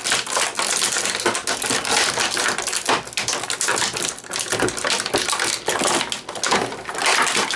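Clear plastic bag crinkling and crackling continuously as it is handled and pulled open.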